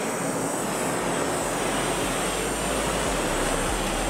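Hand-held propane torch on a long wand burning with a steady, even hiss. It is being swept over a freshly poured epoxy flood coat to pop the air bubbles rising to the surface.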